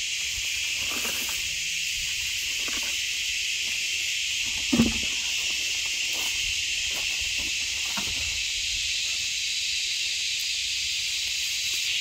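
Steady, high-pitched buzzing chorus of insects in the field, with a few soft knocks and one louder thump about five seconds in.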